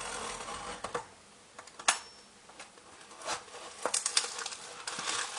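Cardboard food box being cut open and handled with a box cutter: irregular scrapes, taps and crinkles, with a sharp click about two seconds in and a quick run of clicks and scrapes around four seconds in.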